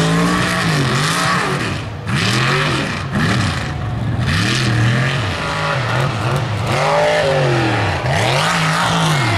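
Mega truck's engine revving hard again and again, its pitch rising and falling about once a second as the throttle is worked.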